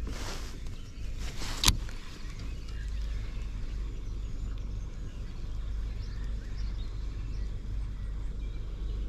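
Wind rumbling steadily on the microphone, with a short hiss right at the start and one sharp click a little under two seconds in, while a baitcasting reel is wound in.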